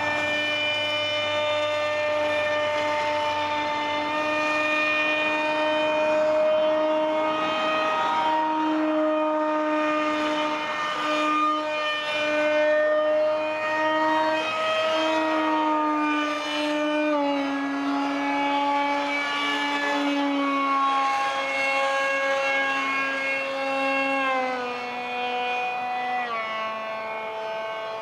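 Motor and propeller of a radio-controlled foam Alpha Jet park jet whining steadily in flight. The pitch wavers, then drops in a few steps over the last ten seconds.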